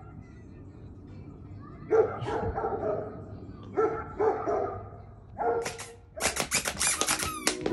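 A dog barking in short bursts of two or three barks, about two seconds in, again about four seconds in, and once more shortly after. Music starts about six seconds in.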